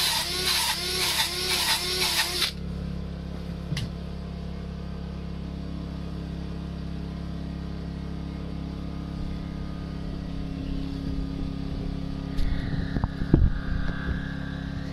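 Cordless drill spinning a rotary bristle brush against carved wood, a loud rhythmic scrubbing that stops about two and a half seconds in. A steady low drone follows, with a few knocks near the end.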